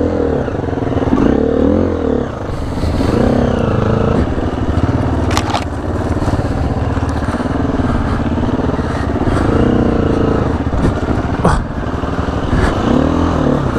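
A four-stroke single-cylinder dirt bike engine, its revs rising and falling over and over as it is ridden along a trail. A few sharp knocks cut in now and then.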